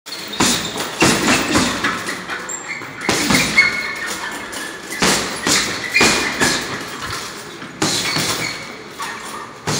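Boxing gloves striking a hanging heavy punching bag: repeated thuds, often in quick pairs or threes about half a second apart, with short pauses between combinations.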